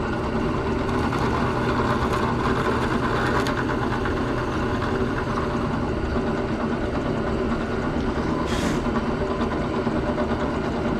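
Drill press motor running steadily, with a short hiss about eight and a half seconds in.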